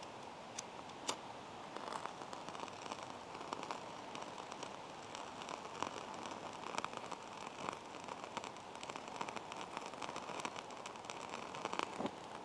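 Faint, irregular crackling from a wad of water-soaked cotton rope and wood fibre tinder as a disposable lighter's flame is held to it and it slowly catches.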